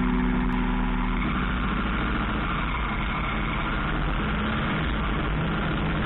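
A vehicle engine running steadily, a low continuous rumble with road or cabin noise. Background music fades out in the first second or so.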